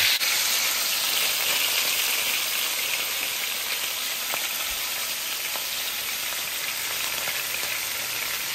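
Two whole redtail surfperch shallow-frying in oil in a wok: a steady sizzle, with a few faint pops of spattering oil.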